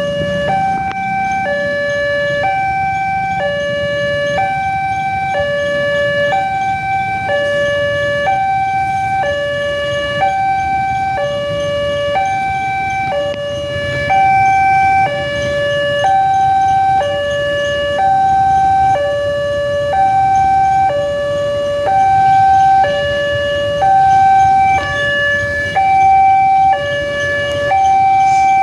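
Alkhmar-type railway level-crossing alarm sounding its two-tone electronic warning, a lower and a higher tone alternating about once a second, signalling an approaching train. A low rumble of road traffic runs underneath.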